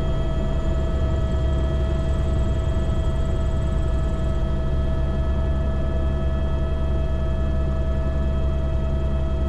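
Airbus H125 (Esquilo B3e) helicopter running steadily: the Arriel 2D turboshaft's high steady whine over the low drone of the rotor and airframe.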